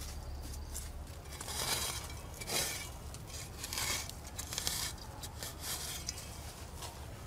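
Digging by hand in dry straw mulch and loose soil to uncover yam tubers: about five scrapes and rustles, roughly a second apart.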